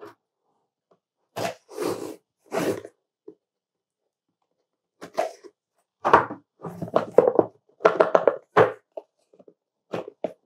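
Cardboard box being handled on a tabletop: a run of short scraping, sliding and tapping sounds as it is turned and its lid is worked open. The sounds come in separate bursts, thickest in the second half.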